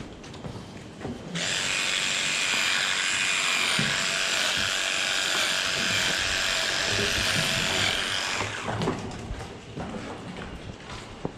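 Small handheld cordless power tool held to a cow's tail, running at a steady high-pitched whine. It starts about a second in and winds down after about seven seconds.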